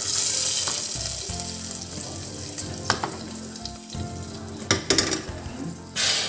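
Hot coconut-oil tempering with browned garlic poured into crab curry in a clay pot. It sizzles loudly as it hits and then dies away, with a few sharp clicks and a second short sizzle near the end.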